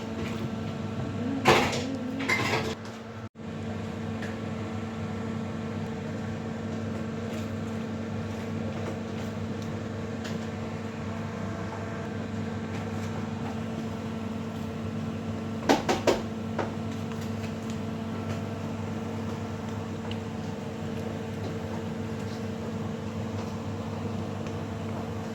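Kitchen clatter of pots and utensils over a steady machine hum. There are clanks about one and a half and two and a half seconds in, and another short clatter about sixteen seconds in.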